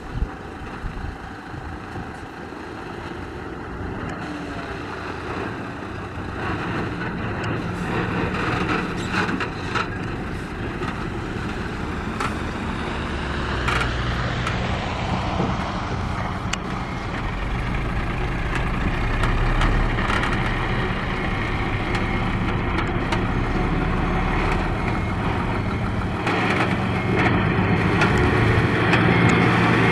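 Loaded dump truck's diesel engine running, growing steadily louder; a steady low engine hum becomes clear about halfway through and is loudest near the end, as the tipper bed is raised.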